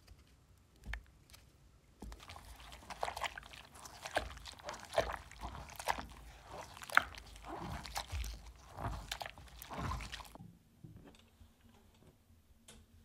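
A gloved hand scrubbing and squeezing an old vacuum cleaner cloth in soapy water in a plastic tub, giving irregular wet squelching and sloshing. It starts about two seconds in and stops suddenly about ten seconds in.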